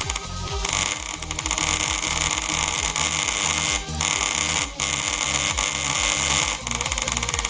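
A computer mouse click spammed at a very fast rate, the clicks running together into a dense, harsh, distorted rattle with a couple of brief dropouts near the middle.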